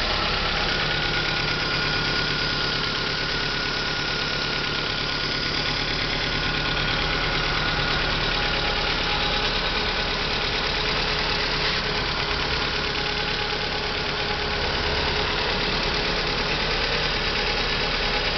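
Lancia Y 1.2 16V four-cylinder petrol engine idling steadily, with a thin high whine over the engine note; this is the strange motor sound the owner is recording.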